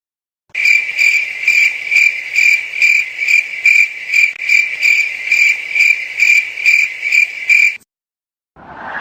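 Cricket chirping sound effect: a steady high chirring that pulses evenly about two and a half times a second, then cuts off about a second before the end. This is the comedy 'crickets' cue for an awkward silence.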